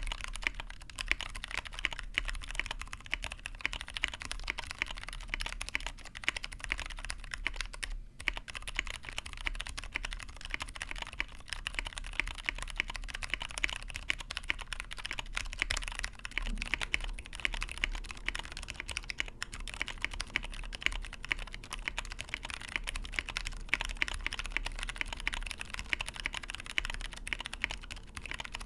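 Fast, continuous typing on a Tofu65 mechanical keyboard with lubed Cherry Clear tactile switches in an aluminium plate, capped with PBT keycaps. There is a short break about eight seconds in.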